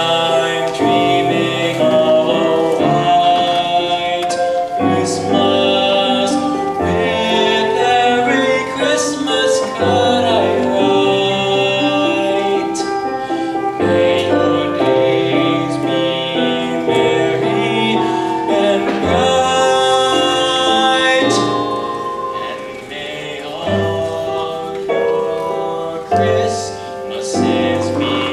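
Ensemble music: sustained chords and melody lines over a stepping bass, with sharp percussion strikes at intervals and a brief drop in loudness near the end.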